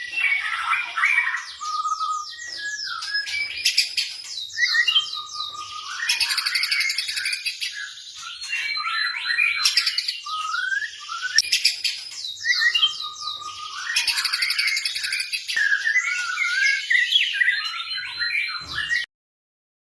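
White-rumped shama singing a long, varied song of fast trills, chattering phrases and clear whistled glides. The song cuts off abruptly near the end.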